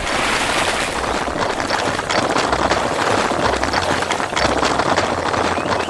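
Construction-vehicle engine sound effect: a steady, noisy machine running with many small rattling clicks.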